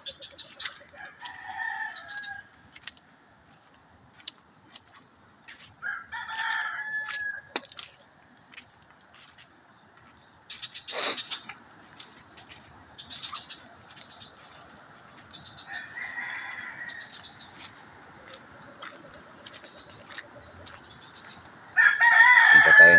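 Roosters crowing four times, the last and loudest near the end, over a steady high insect drone, with scattered crackling footstep and rustling noises.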